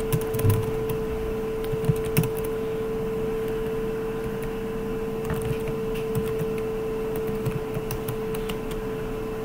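Computer keyboard keys clicking in scattered taps, busiest in the first couple of seconds, over a steady hum.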